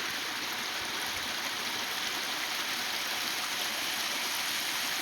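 Small seasonal waterfall: spring water, swollen by snowmelt and heavy rain, spilling over its banks and falling in a steady rush.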